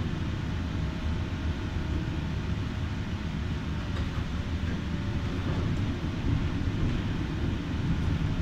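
A 1988 Konstal 105Na tram running along the track, heard from inside the car: a steady low rumble of wheels on rails and running gear, with a faint steady whine.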